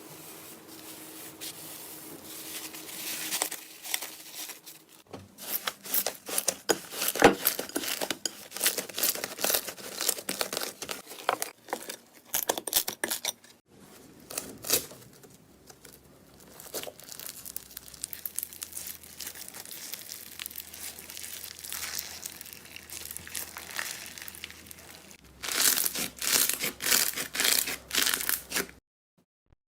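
Slime being squeezed and worked by hand, giving dense runs of crackling, popping clicks. It comes in several separate stretches that change abruptly, with a brief silence near the end.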